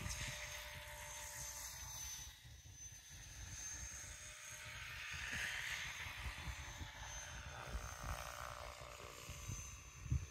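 Faint drone of a distant radio-controlled model aircraft, swelling and then fading a few seconds in, over a low rumble.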